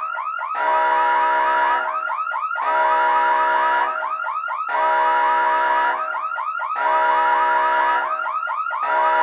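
Electronic emergency siren in a fast yelp of about five short sweeps a second, with a steady horn-like tone sounding for about a second roughly every two seconds, repeating evenly.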